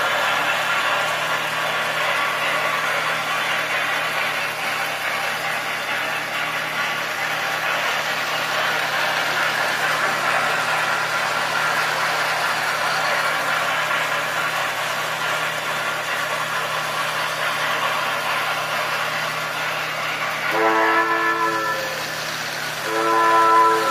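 Sound-effects recording of a train running steadily, heard through an acoustic 78 rpm phonograph, then two long multi-toned whistle blasts near the end.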